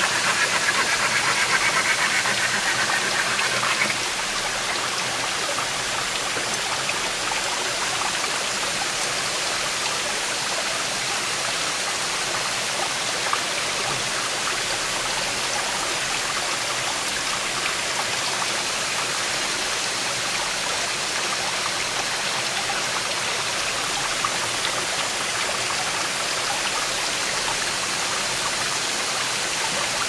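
Steady rushing of a waterfall and stream, a little louder for the first few seconds.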